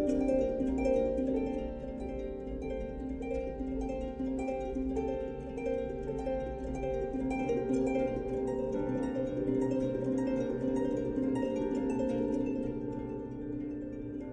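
Background music: a gentle plucked-string melody of short, evenly paced notes, running on without a break.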